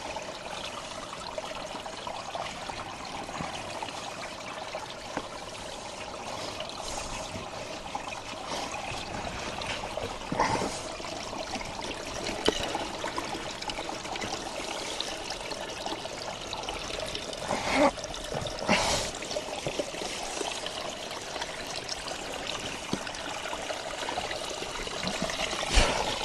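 Steady trickle of running water, with a few short knocks about ten, eighteen and nineteen seconds in.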